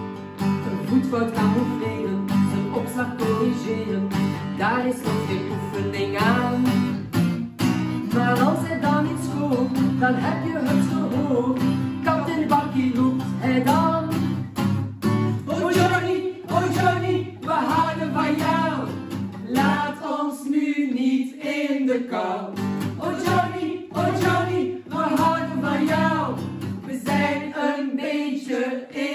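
Acoustic guitar strummed as accompaniment while a small group of women sing a song in Dutch together. The guitar pauses briefly twice in the second half while the singing carries on.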